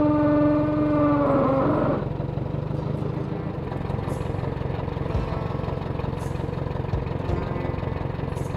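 A vehicle engine runs steadily. In the first two seconds a single horn note sounds over it, holding one pitch before wavering, dropping and cutting off.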